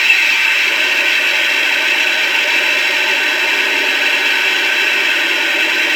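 The simulated engine start-up sound of a Mato 1/16 King Tiger RC tank's sound unit, played through an upgraded speaker. It is a steady, harsh, noisy engine sound with little bass.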